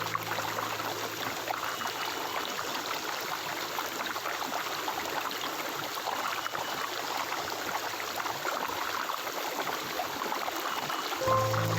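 Stream water flowing and babbling in a steady rush. Soft music with low held notes comes in near the end.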